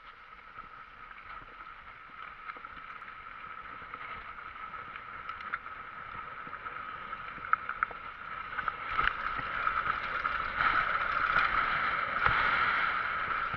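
Downhill mountain bike running fast down a dirt trail: a steady rush of tyres on loose dirt and wind, with a few sharp knocks and rattles from bumps, getting louder over the last few seconds as speed builds.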